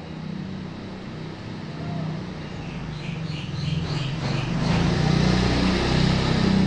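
Motor vehicle noise that swells over the second half, like a vehicle passing. A bird chirps several times in quick succession about halfway through.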